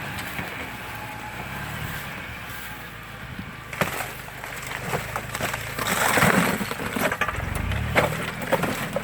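UAZ Hunter engine running under load as the 4x4 drives into the obstacle. From about four seconds in it is joined by repeated sharp cracks and crunches under the tyres, with louder noisy bursts in the second half.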